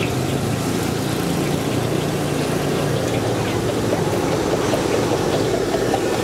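Steady roar of a street-cart wok burner, mixed with passing road traffic.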